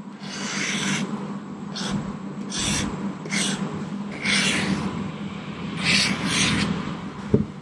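Stylus scratching across the textured reMarkable 2 e-ink screen while writing: about seven short, papery strokes of uneven length, like pencil on paper.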